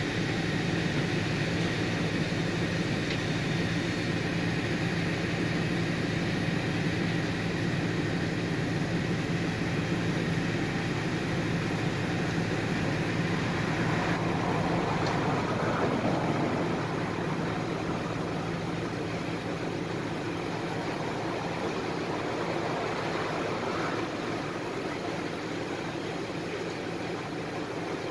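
City bus engine idling while the bus stands still, heard from inside the cabin as a steady low hum. A swell of passing traffic comes about halfway through, after which the hum is a little quieter.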